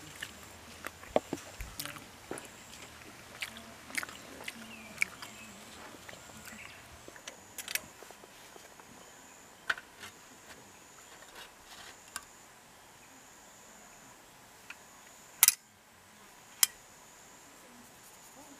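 Scattered light clicks and knocks, with two sharper, louder clicks near the end, over a faint steady high-pitched hum.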